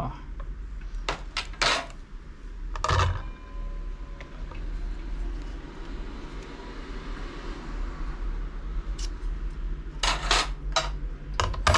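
Thin steel bicycle disc brake rotors and a metal caliper clinking as they are handled: a few sharp clinks about a second in, one near three seconds, and a quick cluster near the end.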